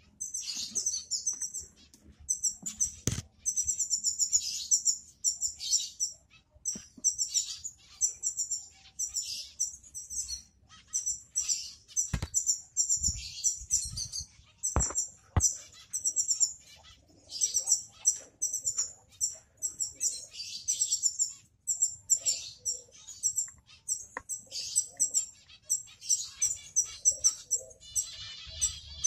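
Small finches chirping continually: quick runs of short, high-pitched notes, several birds calling over one another. A few sharp clicks about three, twelve and fifteen seconds in.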